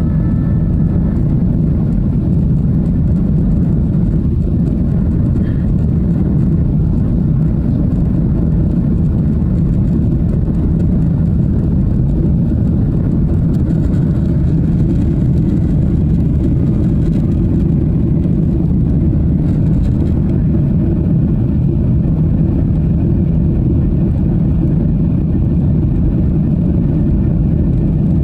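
Steady roar of a Boeing 737-800's jet engines and rushing air, heard inside the passenger cabin during the climb after takeoff.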